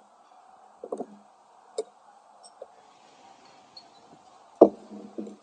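Metal chopsticks clicking and clinking against a ceramic plate and bowl, a few separate knocks with the loudest one near the end.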